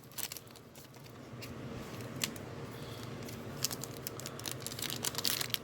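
Light clicks and crinkles of foil trading-card packs and slick chrome cards being handled, coming more thickly in the second half, over a steady low room hum.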